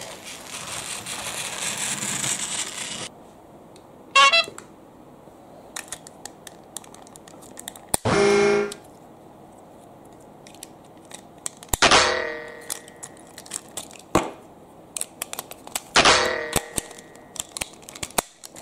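Toy train playset being handled: light plastic clicks and knocks throughout. Three short pitched electronic toy sound effects come about four seconds apart.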